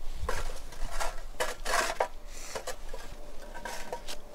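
A wire grill grate scraping and clinking against a small metal charcoal grill as the hot coals are raked level, in a run of irregular strokes that is busiest in the first half.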